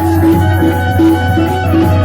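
Instrumental passage of Gujarati devotional folk music. A melody moves in short held notes over a steady low drone, with rhythmic percussion.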